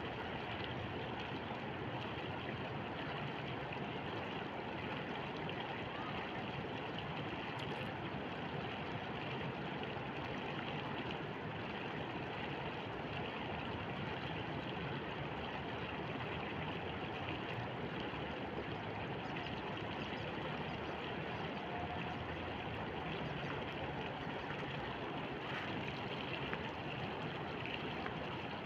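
Shallow river flowing over stones and gravel, a steady rush of water.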